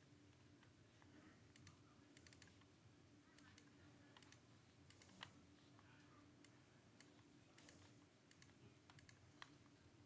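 Faint, irregular clicks and taps, about one a second and sometimes in quick pairs, the sharpest a little past the middle, over a faint steady hum.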